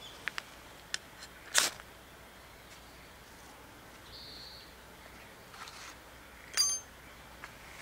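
A tinder bundle under dry twigs being lit: a few small clicks, then one sharp strike about a second and a half in that is the loudest sound, and another sharp sound late on. A faint high-pitched animal call repeats twice in the background.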